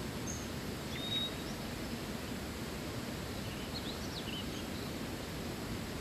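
Steady rush of a waterfall, with a few short high bird chirps about a second in and again in a small cluster around four seconds.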